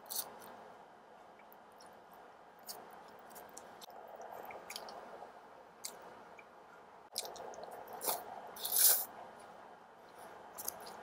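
Close-miked mouth sounds of eating noodles with chopsticks: quiet chewing with scattered small wet clicks, and a louder noisy burst about eight seconds in.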